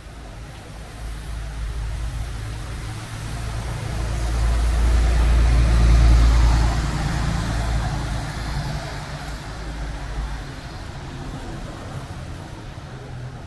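A bus driving past close by on a town street: a deep engine rumble with tyre hiss that builds to its loudest about six seconds in, then fades away, over steady traffic noise.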